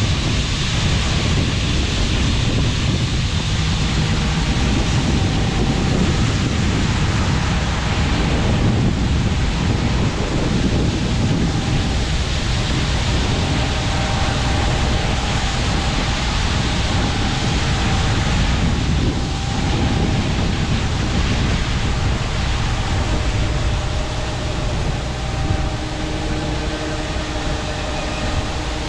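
Steady, loud running of harvest machinery under heavy wind noise on the microphone. Faint steady whining tones come in over the second half.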